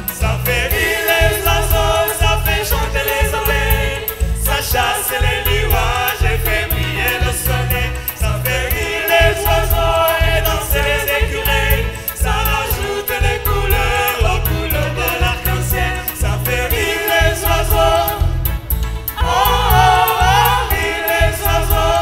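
Large mixed choir and lead singers performing an upbeat French song through microphones, over a band accompaniment with a steady pulsing bass beat.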